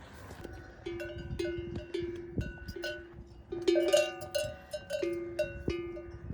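Metal bells clanking irregularly, a few strikes a second at two or three ringing pitches, loudest about four seconds in.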